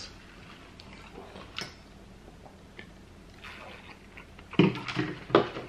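Quiet close-miked eating sounds, with faint clicks of food being picked apart. Near the end come two louder gulps as a drink is swallowed from a cup.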